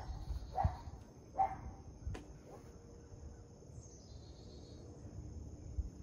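Steady high-pitched insect chorus. Two short, faint calls sound within the first second and a half, and a brief high bird note comes about four seconds in.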